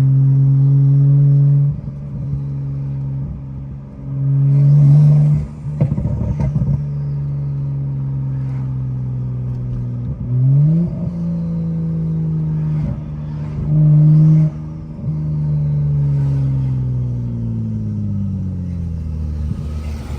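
BMW 535i's turbocharged inline-six engine running while the car is driven. Its pitch climbs quickly about halfway through and sinks gradually near the end as it slows. There is a brief louder noise about six seconds in.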